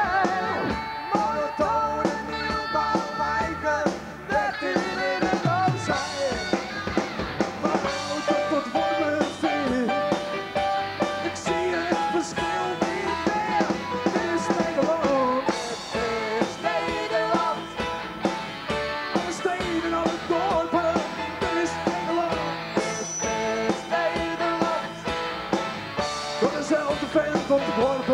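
Live rock band playing: electric guitar and drum kit, with a man singing into a microphone.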